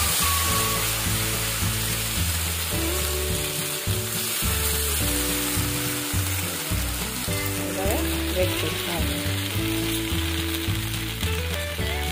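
Thin rice-flour batter sizzling steadily on a hot non-stick pan, just poured and setting into a lacy sheet full of holes. Background music plays underneath.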